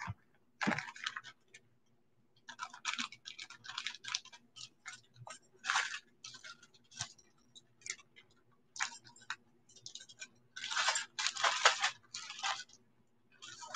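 Irregular clicking and rustling of small objects being handled on a table, in uneven bursts, with a faint steady hum underneath.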